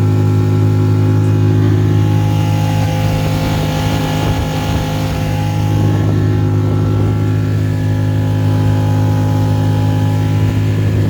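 Outboard motor running steadily at full throttle, an even hum, driving the inflatable boat onto plane. Water and wind rush past, swelling around the middle.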